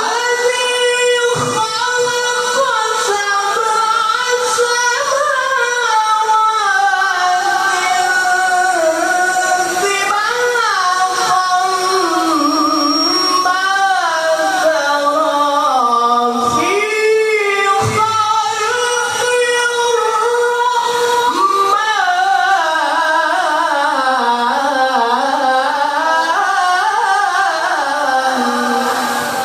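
A qari chanting Quran recitation in the melodic tilawah style: one high voice sings long, ornamented phrases that glide up and down, with only brief pauses for breath.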